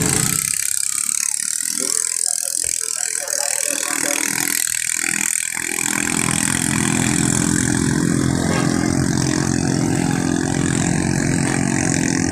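Ketinting longtail boat engines running, with a steady engine note coming up about halfway through and holding.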